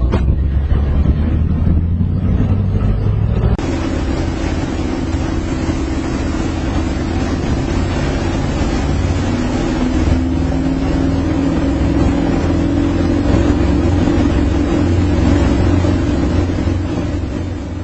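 Boat engine running steadily under way, with wind noise on the microphone. The sound changes abruptly about three and a half seconds in, to a steadier engine note.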